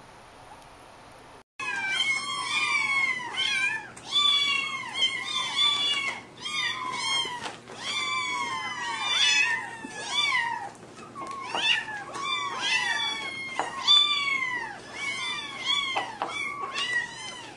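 Several young kittens meowing over one another without a pause, starting about a second and a half in. The high meows rise and then fall in pitch.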